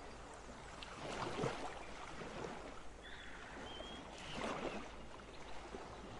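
Silicone spatula stirring and scraping squid pieces through a wet flour-and-breadcrumb batter in a glass bowl, coming in soft swells with each stroke.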